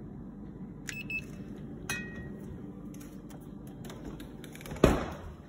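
Handheld infrared thermometer giving two short beeps about a second apart, each starting with a click, over a steady low hum, then a single loud thump near the end.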